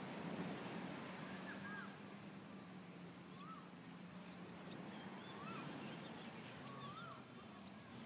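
A bird calling faintly, short whistles that rise and fall, repeated every second or two, over a steady low hum and a soft hiss.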